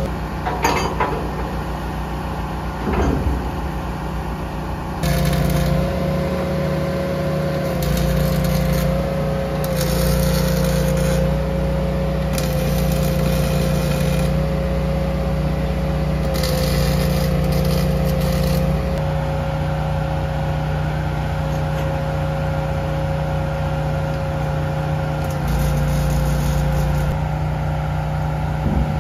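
Truck-mounted crane's diesel engine and hydraulics running steadily under load: a low engine hum with a held whine, broken by several short bursts of hiss.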